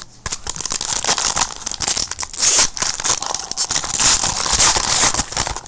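Plastic-foil wrapper of a trading card pack being torn open and crinkled. The crackling comes in bouts, loudest about halfway through and again near the end.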